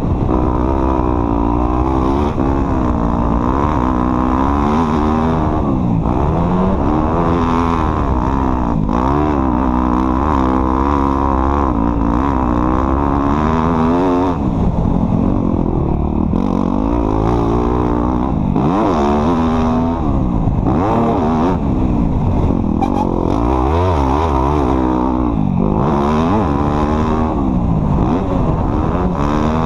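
Off-road vehicle engine running under load, its pitch rising and falling over and over as the throttle is worked.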